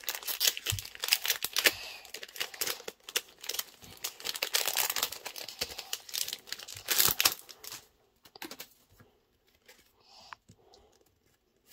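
Foil Pokémon booster pack wrapper crinkling and rustling as the cards are slid out of the already-opened pack. For the last few seconds it gives way to a few faint ticks of cards being handled.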